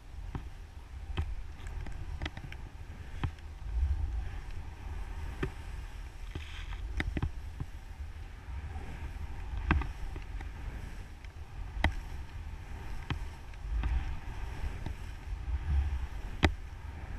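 Wind buffeting a GoPro's microphone during a powder ski descent, a steady low rumble over the hiss of skis through snow, with sharp knocks every second or two.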